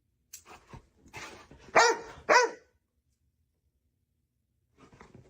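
A dog barks twice in quick succession, after some brief rustling.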